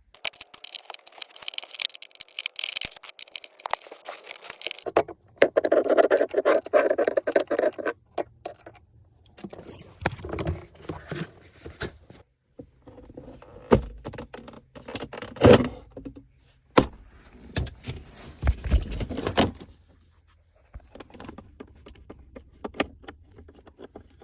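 Plastic car interior trim being pried and handled: irregular clicks, scraping and rattling, with a few sharper knocks in the second half as console pieces are worked loose.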